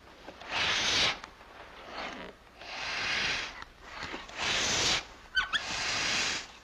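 Air hissing in repeated strokes, about one every second or so, from a hand pump inflating a bicycle tyre's inner tube. A short squeak comes near the end.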